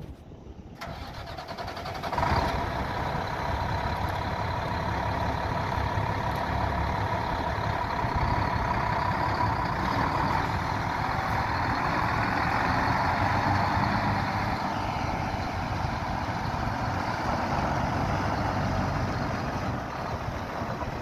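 2007 International 7600 bulk feed truck's diesel engine being started. It turns over for about a second, catches with a sudden jump in level a little after two seconds, then runs steadily with a whine over it.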